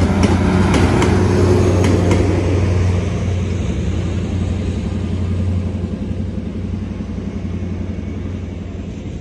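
Trailing Class 43 HST power car passing and pulling away, its MTU diesel engine running with a steady low rumble. Wheels click over rail joints a few times in the first two seconds, then the engine fades as the train recedes.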